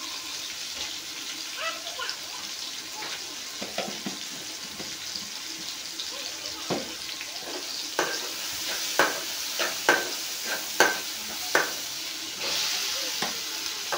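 Masala frying in oil in a steel kadhai, a steady sizzle, with a run of sharp metal clinks from about eight seconds in. Near the end the sizzle swells as more food is tipped into the hot pan.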